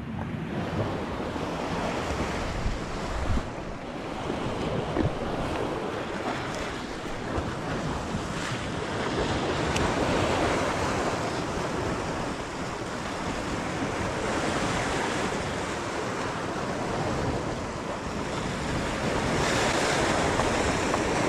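Sea surf washing and breaking against a rocky shore, with wind buffeting the microphone; the rushing noise swells and eases in waves.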